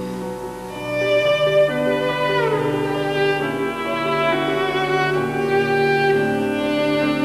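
Cello playing a slow, held melody over low sustained notes, with a downward slide between two notes about two and a half seconds in.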